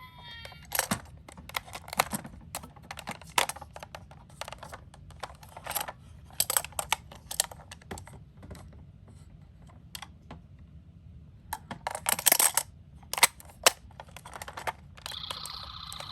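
Irregular small hard clicks and clatters of miniature toy cars being handled, with a dense burst of clattering about twelve seconds in. A toy ambulance's electronic siren ends just after the start, and another electronic siren sound starts near the end.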